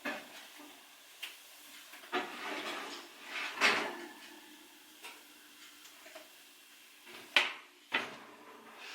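Kitchen handling sounds: a string of separate light knocks and clunks, with two sharper clunks near the end.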